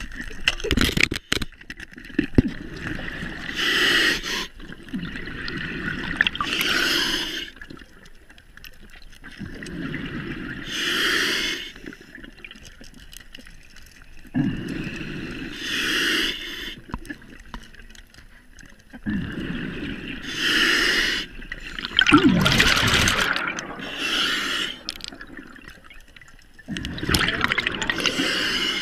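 Scuba diver breathing through a regulator underwater: a rush of breath and bubbles followed by a loud hissing burst, repeating about every four to five seconds. A couple of sharp clicks about a second in.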